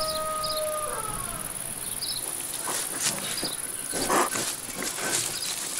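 Crickets chirping steadily, with small bird chirps, while a piglet in straw gives a series of short grunts and snuffles, the loudest about four seconds in. A steady tone stops about a second in.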